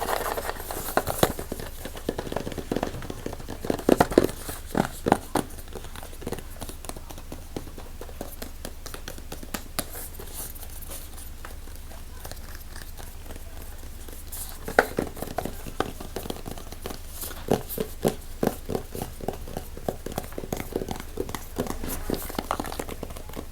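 Close-miked ASMR handling sounds: quick irregular taps and clicks with some crinkling, easing off for several seconds in the middle before picking up again.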